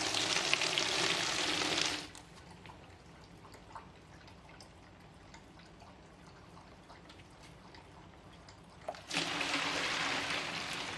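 Water poured onto dry ice in a foam cooler, splashing and bubbling as it fogs. The pour stops about two seconds in, leaving only a faint bubbling, then starts again with a small knock about nine seconds in.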